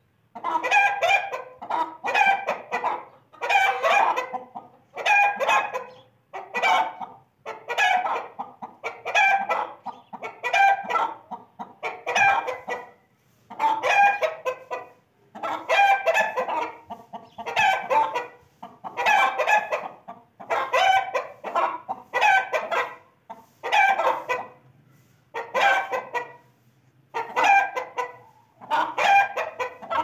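Chicken calling over and over: short, harsh, pitched calls of about a second each, coming roughly once a second with brief gaps.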